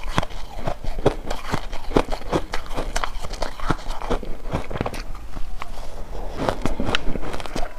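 Close-miked chewing of a layered ice bar: crisp, irregular crunching of the ice, several crunches a second.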